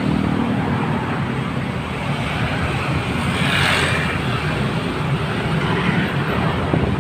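Road traffic passing close by: scooters and cars driving past with their engines running and tyre noise, a louder pass swelling about three and a half seconds in.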